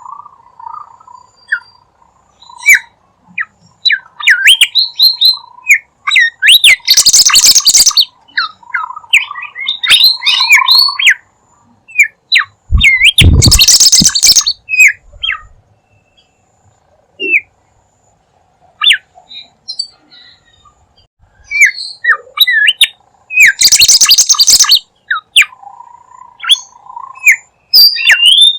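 Bimoli bird lure-call recording: a bird singing vigorously in rapid chirps and sweeping whistles, with a warbling low note now and then. Three loud, harsh, rasping bursts break in, about 7, 13 and 24 seconds in.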